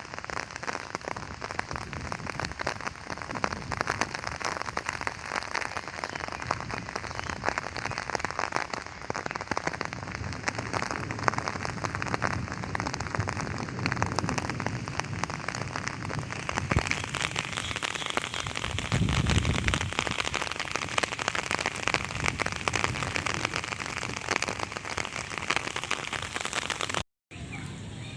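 Steady rain falling and spattering on surfaces, a dense patter of drop impacts that grows heavier about two-thirds of the way through, with a brief low rumble at about that point.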